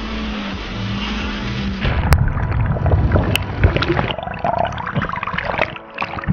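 Personal watercraft engine driving a flyboard, running steadily over the rush of the water jets, its note dropping a little. About two seconds in the sound turns muffled and is heard underwater: bubbling and gurgling with scattered crackles.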